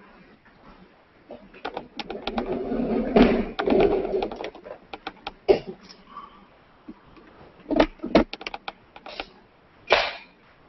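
Objects being handled and set down, heard over a video-call link: a busy stretch of rustling and clatter, then a few separate sharp knocks and clicks.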